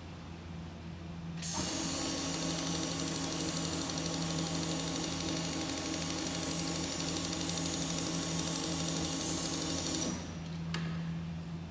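Industrial sewing machine running steadily as it stitches the side hem of a lined curtain. It starts about a second and a half in and stops abruptly near the end, followed by a single click.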